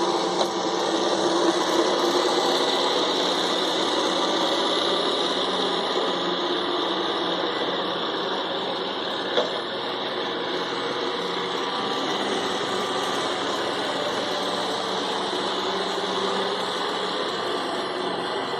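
iRobot Roomba 675 robot vacuum running as it cleans: a steady whir of its vacuum motor and spinning brushes, with one short click about nine seconds in.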